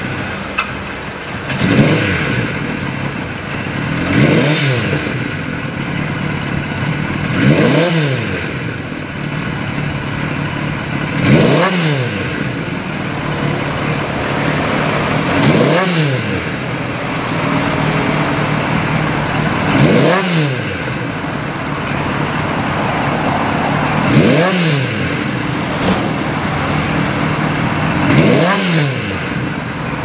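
Kawasaki Z1's 903 cc air-cooled inline-four idling, with the throttle blipped eight times, about every four seconds. Each rev rises quickly and falls back to a steady idle.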